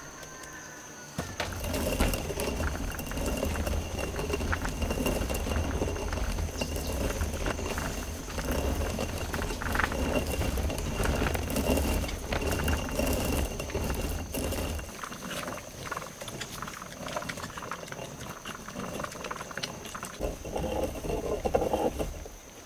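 Hand-turned stone grain mill grinding, the upper stone rumbling and grating on the lower one with a stream of small clicks. About two-thirds of the way through the rumble stops, and lighter scraping and knocks on the stone follow.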